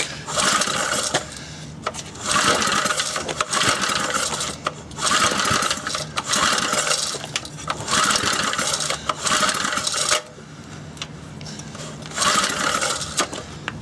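Briggs & Stratton 2 hp 60102 single-cylinder four-stroke engine being pull-started again and again, with a run of pulls each about a second long and the engine cranking without catching. It is hard to start, which the owner puts down to vapour leaking around the carburettor gasket.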